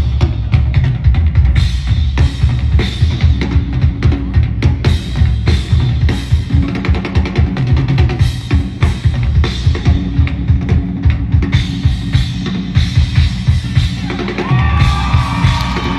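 Drum solo on a Pearl Session series rock kit with V-Classic cymbals: dense fast fills with bass drum and crashing cymbals. About a second and a half before the end the drumming stops and the crowd starts cheering.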